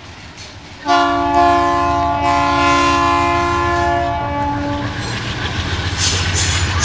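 A GE C39-8 diesel locomotive sounds one long blast of its multi-chime air horn, lasting about four seconds and starting about a second in. Under it runs the steady low rumble of the locomotive's 16-cylinder diesel engine working under power. Near the end the clatter of wheels on rail joints grows louder as the train nears.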